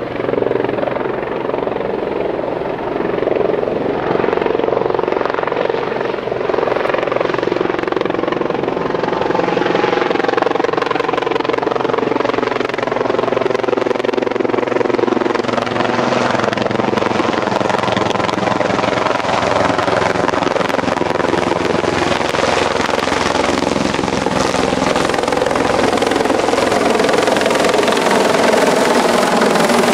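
Sikorsky S-76C+ helicopter flying in toward the listener, its rotor beat and twin turboshaft engines growing steadily louder as it comes close overhead.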